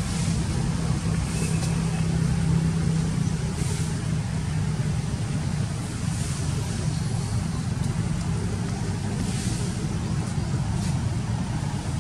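Steady low hum of an engine running, with no change in speed.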